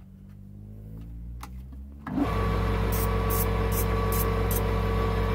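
A wood lathe is switched on about two seconds in and runs at a steady speed with a constant motor hum. Near the middle, a pencil is pressed against the spinning hardwood workpiece in five short hissing scratches as it marks rings on the wood.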